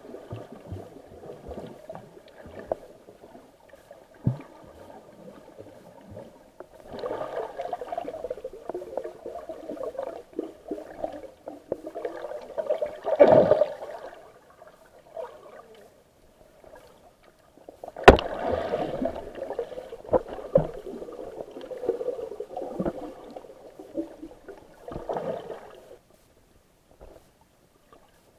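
Muffled water noise picked up by a camera held underwater: sloshing and gurgling in two long stretches, loudest about a third of the way in, with a sharp knock just before the second stretch.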